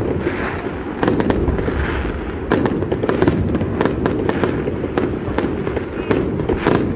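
Fireworks display: a dense run of sharp bangs from aerial shells bursting overhead, several a second, over continuous noise between them.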